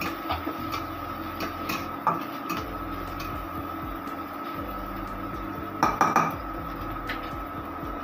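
Metal spatula scraping and clinking against a stainless-steel wok while chopped onion and chilli are stir-fried in oil, with a louder cluster of clinks about six seconds in. A steady high hum runs underneath.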